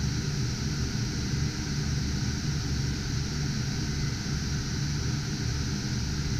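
Steady whir of a GPU mining rig's cooling fans, with a few faint steady tones in it and no change.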